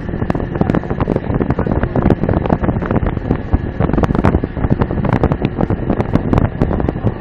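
Ship's anchor chain running out during an anchor test: a dense run of irregular clanks over a low rumble, with wind buffeting the microphone.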